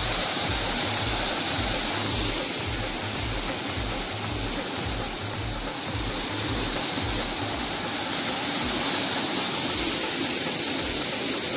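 Steady rush of a mountain stream, with a regular low beat of background music underneath.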